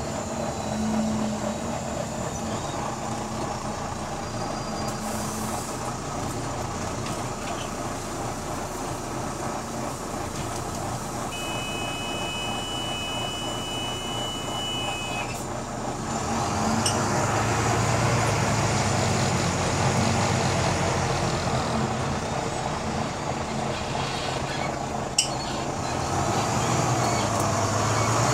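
Bus diesel engine heard from inside the passenger saloon, running steadily at first, with a steady two-note electronic beep for about four seconds. About sixteen seconds in, the engine goes louder and climbs under load as the bus pulls away and accelerates, with a single sharp click near the end.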